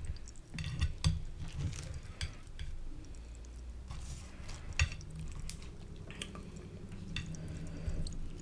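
A soft flour tortilla being handled and tucked over a plate of food, with scattered light clicks and taps of fingers and nails against the plate.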